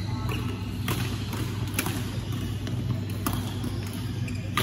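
Badminton rackets striking shuttlecocks: several sharp smacks at irregular intervals, about a second or more apart, over a steady low hum.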